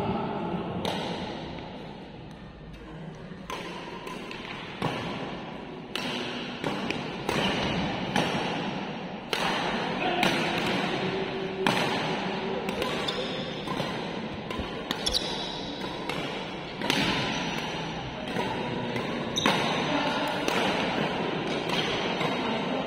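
Badminton rackets hitting the shuttlecock again and again in a fast doubles rally, sharp irregular smacks about once a second, with shoes squeaking and stepping on the court floor in a reverberant sports hall.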